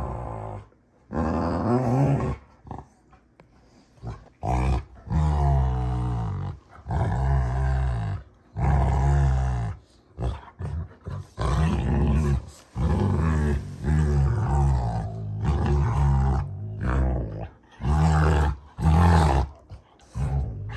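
Rottweilers play-wrestling, growling in a long run of low, rumbling bouts of a second or two each, broken by short pauses.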